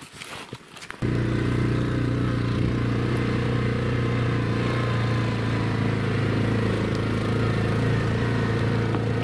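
Footsteps crunching on thin snow, then about a second in a small off-road vehicle's engine cuts in loud and steady, running at an even pitch while driving along a forest trail.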